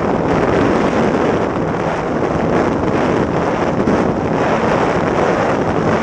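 Jet ski running at speed over open sea: steady engine drone mixed with the hiss of spray and heavy wind noise on the microphone.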